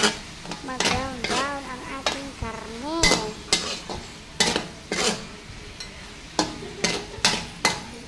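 Metal spatula stirring and scraping chopped pork in an oiled wok, striking the pan with repeated sharp clanks over a steady sizzle of frying.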